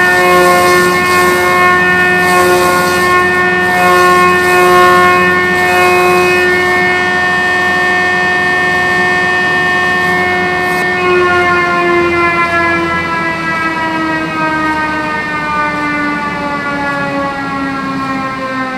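A homemade log-rounding machine running with a steady whine, which slowly drops in pitch from about halfway through as it winds down.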